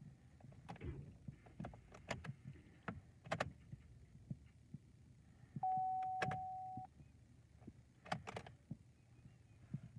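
Chevrolet Cruze that will not start: scattered clicks and knocks, with no engine running, and a single steady electronic warning beep lasting about a second just past the middle.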